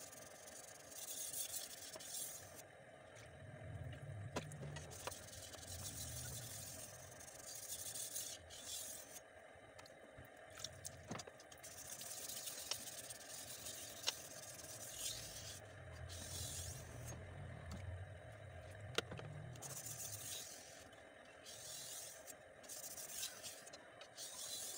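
A 25 cm Pirge bullnose butcher knife's steel blade being stroked by hand across a wet whetstone: repeated scraping passes lasting one to a few seconds each, with short pauses between them and a few sharp ticks.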